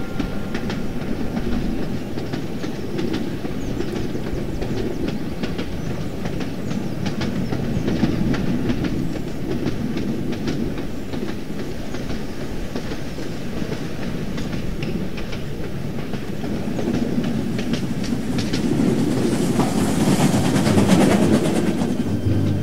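Train running on jointed track: a steady rumble with the clickety-clack of wheels over rail joints. Near the end a rising rush of noise peaks about two seconds before the end as a train passes.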